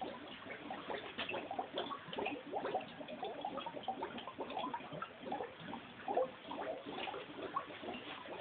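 Twin-bubble fermentation airlocks on several wine demijohns bubbling in quick, irregular little pops as carbon dioxide pushes through the water in them, a sign of active fermentation.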